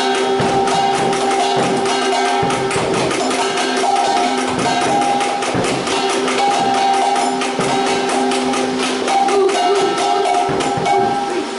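Background music with a fast, busy percussive beat and a held melody.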